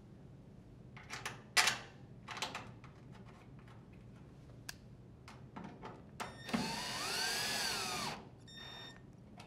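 Sharp clicks and knocks of a screw and tool being handled against a dryer's sheet-metal top panel, the loudest about a second and a half in. Later a cordless drill driver runs for about a second and a half, its whine rising then falling, as it drives a screw into the panel.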